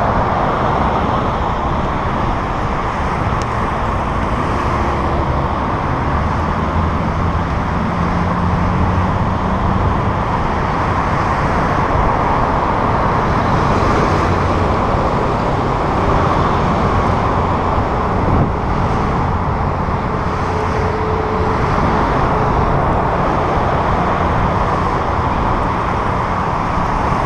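Steady rush of passing car traffic on a multi-lane expressway, mixed with wind noise on a bicycle-mounted camera's microphone as it rides. A passing vehicle's engine hum stands out for a few seconds about seven seconds in.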